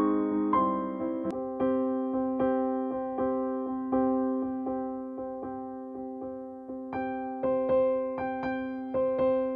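Gentle background music on a piano-like keyboard, single notes struck at a steady, unhurried pace over held lower notes.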